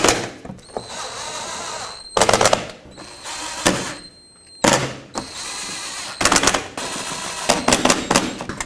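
Compact cordless impact wrench driving the bolts of an underbody splash shield. It hammers in short rattling bursts about six times as the bolts seat, and the motor runs more quietly in between.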